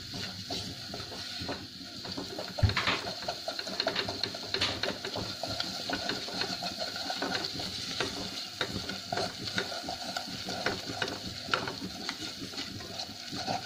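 A spatula stirring and scraping a butter-and-flour roux around a nonstick pot: irregular light scrapes and taps, with one sharper knock a few seconds in. The flour is being roasted in the butter until light golden, the first stage of a white sauce.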